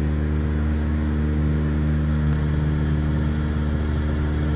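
A motor or engine running steadily with a low, unchanging hum.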